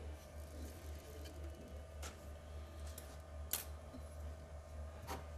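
A few light, irregularly spaced metallic clicks from an Agni motor's parts and a small hand tool being handled during reassembly, over a low steady hum.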